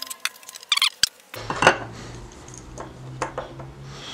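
A wood chisel paring the wood of a hinge mortise with light scraping clicks. About a second and a half in, a metal butt hinge is set into the mortise with a sharp metallic click, followed by a few lighter clinks as it is pressed into place.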